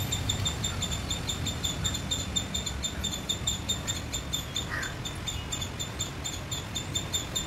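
A small animal's high-pitched call, repeated rapidly and evenly at about five pulses a second on a single pitch. A brief chirp sounds about five seconds in, over a low rumble of wind or handling noise.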